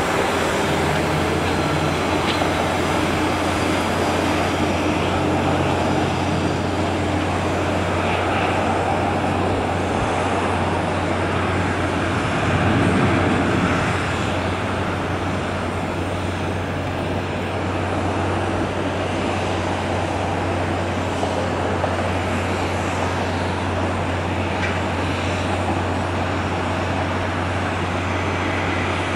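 Steady jet aircraft noise across an airport apron: a broad, even roar over a low hum, swelling briefly about halfway through.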